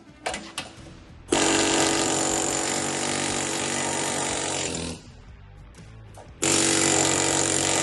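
Pneumatic air hammer driving at the seized bushings of a D7H dozer ripper box, in two long bursts that start and stop abruptly with a short pause between them.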